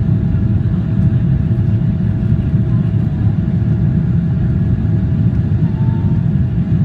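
Steady low rumble of a Boeing 777-300ER's GE90-115B turbofan engines and airflow, heard inside the passenger cabin, with a faint steady tone above it.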